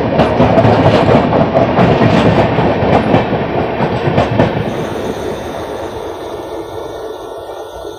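Duronto Express coaches rushing past on the next track at close range, wheels clattering over rail joints. The noise fades steadily after the last coach goes by, about halfway through.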